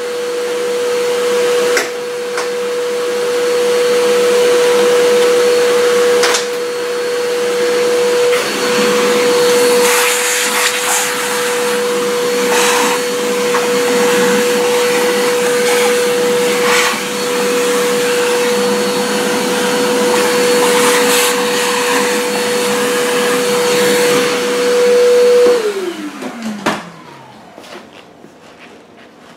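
Shop vacuum running steadily with a high whine over a rushing hiss, with scattered rattles as it sucks drill shavings out of the generator housing. About 26 seconds in it is switched off and its motor winds down with a falling whine.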